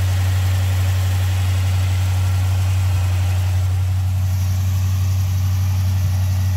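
Small-block Chevy 350 V8 in a C3 Corvette idling high and steady, running on its newly replaced fuel pump.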